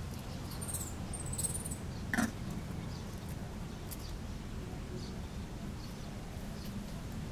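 Brief high squeaks from a baby long-tailed macaque: a few thin chirps about a second in, then one sharper short squeal around two seconds in, over a steady low background rumble.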